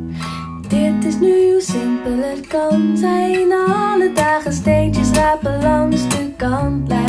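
A song led by acoustic guitar played back through a pair of rebuilt Strathearn SLC3 planar ribbon loudspeakers, their ribbons of aluminium foil on Kapton film.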